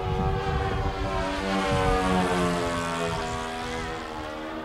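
Twin propeller engines of a large radio-controlled scale model Nakajima J1N Gekko flying past. Their engine note falls steadily in pitch as the model goes by, loudest about two seconds in, then fades.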